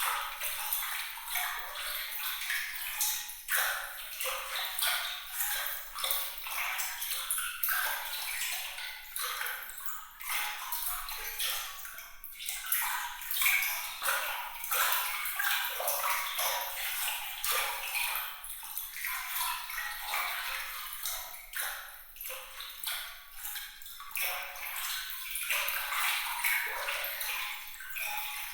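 Water trickling and splashing continuously, with many small, bright droplet sounds and no low rumble: a light, sparkling water texture.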